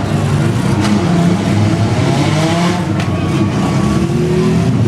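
Several demolition derby cars' engines revving hard at once, their pitch rising and falling. There is a sharp bang about a second in and another about three seconds in.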